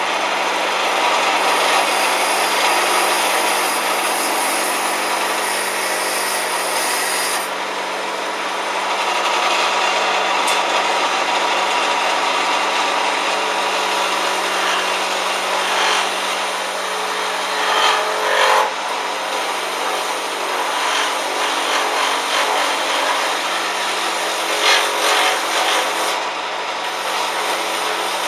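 Wood lathe running with a steady motor hum while a tool scrapes and cuts the spinning wood, a continuous rough scraping with a few louder, sharper flurries in the second half.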